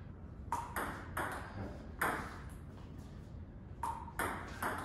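Table tennis serve and rally: the celluloid-type ball clicks sharply off the paddles and the table top, about seven hits, each with a short ring.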